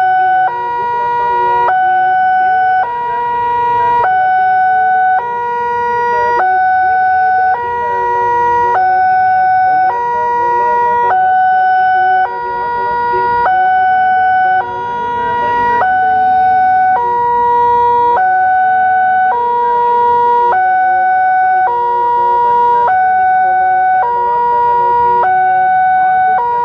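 Electronic warning alarm of a Wantech-type railway level crossing sounding its two-tone signal, alternating steadily between a higher and a lower tone, each held a little over a second. The alarm means the crossing is closed with the barriers down for an approaching train.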